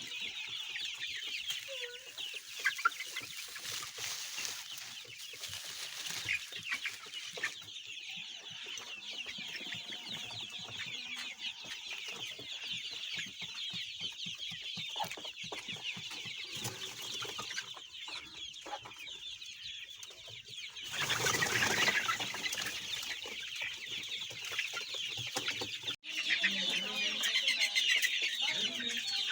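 A flock of Golden Misri chickens clucking and chirping continuously, many birds calling over one another in a dense chatter. About two-thirds of the way in, a louder noisy stretch lasts about a second; near the end the chatter grows louder.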